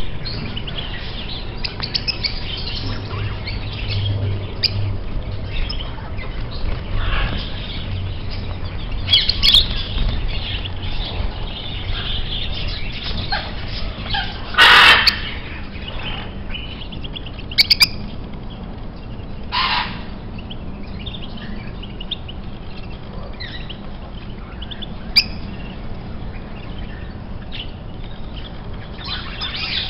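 Several birds chirping and calling together, with a few louder squawks standing out. The loudest is a call about halfway through.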